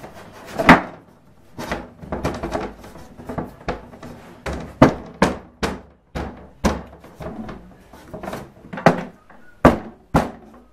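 About fifteen irregular wooden thumps of a hand striking a thin cabinet back panel, knocking it into its grooves; the loudest comes about a second in.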